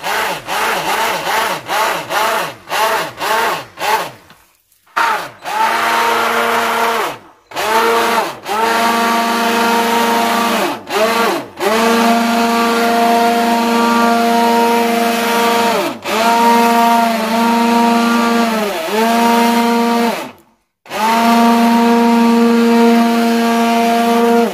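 Hand-held immersion blender running in quick short pulses for the first few seconds, then in longer runs of several seconds. Its whine rises in pitch as each run starts and falls away as it stops. It is emulsifying a thin, hot mix of oil phase and water phase into a cream.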